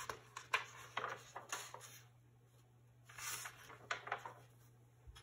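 Paper pages of a picture book being handled and turned: a run of short rustles and flicks in the first two seconds, then a longer swish of a page turning over a bit past three seconds.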